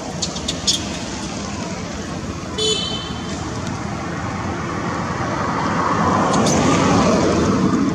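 Road traffic noise: a steady rush with a vehicle passing, growing louder in the second half. A brief high-pitched squeak sounds about a third of the way in, and a few light clicks come near the start.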